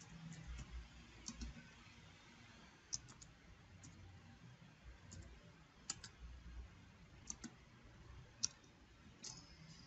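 Faint, scattered clicks of computer keyboard keys being typed, some in quick pairs, a few seconds apart.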